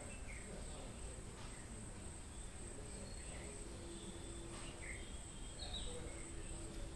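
Faint garden ambience of crickets chirring in a steady high drone, with a few short falling chirps and a faint low hum partway through.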